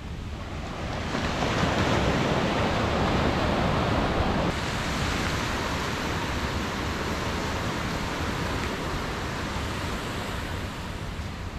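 Sea waves breaking on a sandy beach: the surf swells about a second in, drops suddenly about four and a half seconds in, then runs on steadily.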